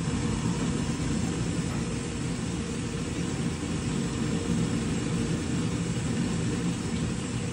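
Steady low rushing hum from a gas kitchen range with its burner lit under a pan of frying oil heating toward 375°F. No sizzling yet.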